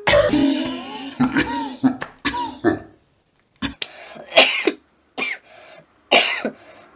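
A man's coughing fit: strained, voiced hacking and throat clearing, then a string of separate harsh coughs in the second half.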